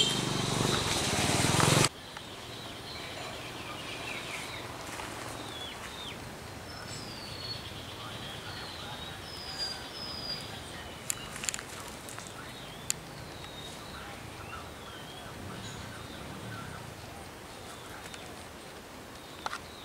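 Quiet rural background with small birds chirping faintly and a few sharp clicks. A loud noise-like sound in the first two seconds cuts off abruptly.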